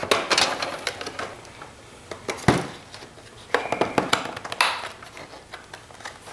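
Plastic casing of a CPAP machine being handled and pried apart by hand: scattered clicks and knocks of plastic parts, a louder knock about two and a half seconds in, and a brief high squeak about a second later.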